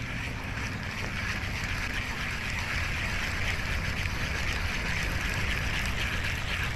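Wind rumbling on the microphone, with a steady whirring hiss from a spinning reel being cranked to retrieve a hooked fish; the hiss grows stronger about a second in.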